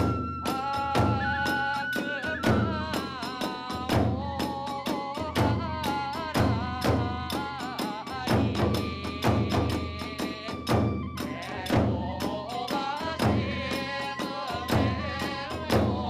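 Hiroshima kagura ensemble playing: a bamboo flute (fue) melody over a fast, steady beat of drum strikes and clashing hand cymbals (tebyoshi).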